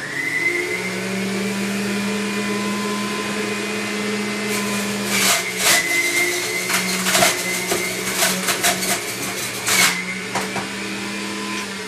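Electric juicer running. Its motor whine rises as it spins up, then holds steady. From about four and a half seconds in to about ten seconds, kale is pushed into the chute and shredded with a run of sharp crackling and chattering, and the motor note dips under the load.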